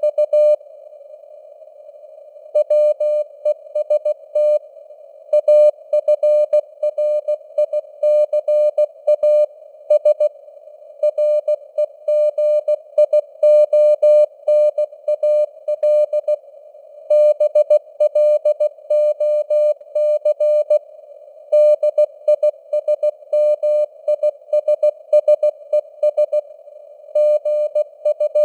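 Morse code (CW) news text keyed at 16 words per minute: a single steady tone switching on and off in dots and dashes over a band of simulated radio hiss, with the signal strength fading up and down (QSB). There is a break of about two seconds near the start.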